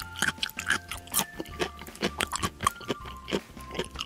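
Close-up eating sounds: many quick bites and crunches of an ice cream cone, over light background music.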